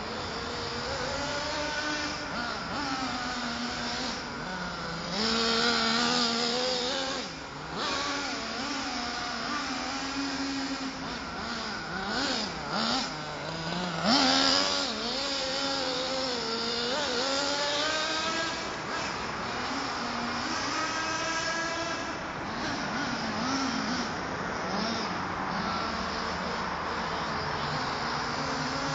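Nitro GV Mammoth RC monster truck's small glow-fuel engine running, its note rising and falling as the throttle is worked on and off. It is loudest about halfway through, when the truck passes close.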